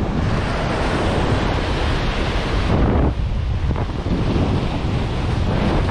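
Wind buffeting the microphone over the wash of ocean surf breaking on a beach, a steady rushing noise with heavy low rumble that eases briefly about halfway through.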